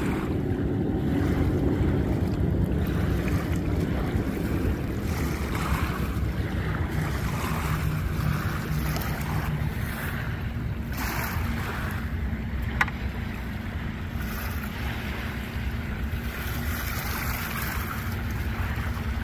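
Wind buffeting the microphone over small waves lapping on a bay shore, a steady low rumbling noise with a faint low hum beneath it. A single sharp click about two-thirds of the way through.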